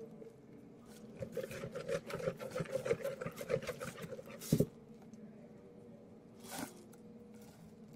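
Borax-activated clear-glue slime being kneaded and stretched by hand in a plastic bowl: a rapid run of small wet clicks and squishes, then a sharp knock about four and a half seconds in and a softer one about two seconds later.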